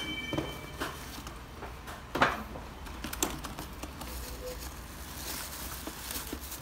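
Cardboard box being handled during unboxing: scattered taps, scrapes and rustles of cardboard, with a louder knock about two seconds in.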